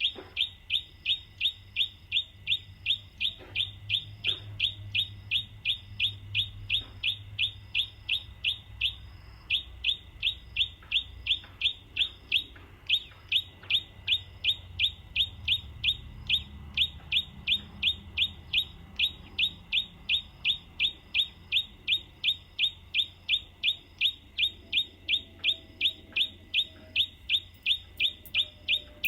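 A bird's call repeated over and over at a steady pace of about two short, falling notes a second, with a brief break about nine seconds in.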